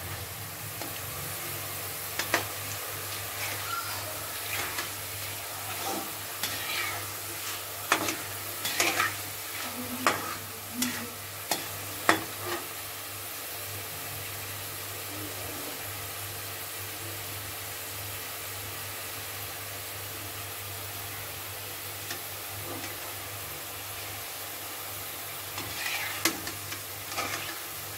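Mochai (field bean) kernels deep-frying in a kadai of hot oil: a steady sizzle, with scattered sharp clicks and pops through the first half and stirring near the end.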